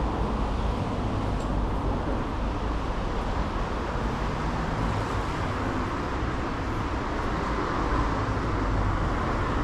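Steady city street traffic noise: a low rumble of passing cars with an even hiss over it.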